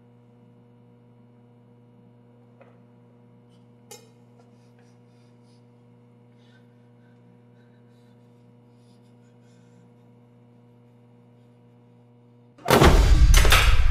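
Low steady hum with a couple of faint clicks. Near the end, a sudden loud, bass-heavy hit breaks in, the start of throbbing film music: a horror-film jump-scare sting.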